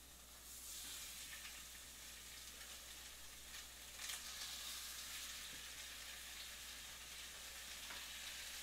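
Fish fillets sizzling as they sear presentation side down in a hot skillet. The sizzle sets in about half a second in and grows louder about four seconds in.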